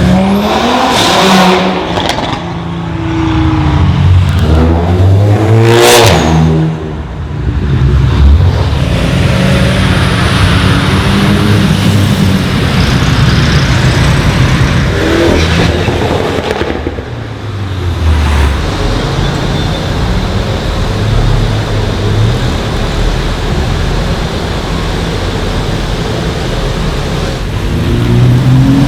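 Modified cars accelerating hard past one after another, their engine notes climbing and falling as each one goes by. Between the passes there is a dense, steady wash of engine and traffic noise.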